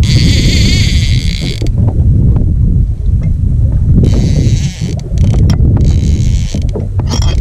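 Spinning fishing reel buzzing in short bursts of about a second each, three times, as a fish is played on a hard-bent rod, over heavy wind rumble on the microphone.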